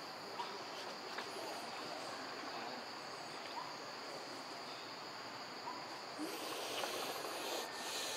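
Outdoor ambience: a steady high-pitched insect drone over a constant hiss, with a few faint ticks.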